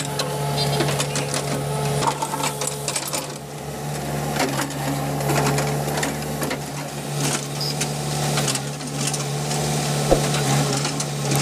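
JCB 3DX backhoe loader's diesel engine running steadily under load as the backhoe bucket drags through soil and broken asphalt, with scattered scraping clatter and knocks of stones.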